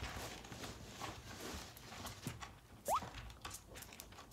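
A small dog's paws pattering and scrabbling, with faint rustling and light taps, and one short rising squeak about three seconds in.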